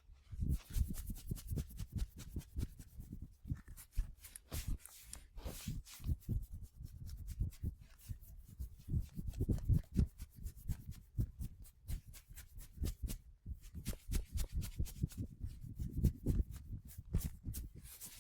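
Hands massaging bare skin: a fast, uneven run of short slaps and taps with rubbing, over dull low thumps.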